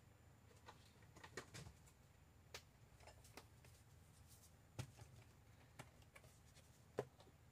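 Near silence broken by faint, scattered clicks and taps of a plastic compartment box of small metal charms being handled, with the sharpest tap near the end.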